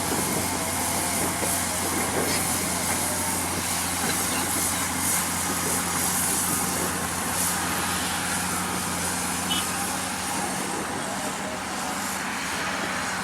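Diesel engine of heavy earthmoving equipment running steadily, a low even hum with noisy clatter over it.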